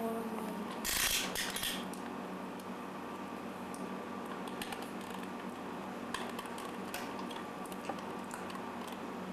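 Clicks and rattles of a child's red plastic toy camera being handled and pressed, with a louder scraping rattle about a second in, over a steady faint hum.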